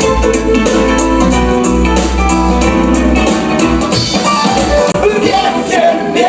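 Live pop band playing an instrumental break between sung verses, with a steady drum beat under sustained melodic notes; a new melody line comes in near the end.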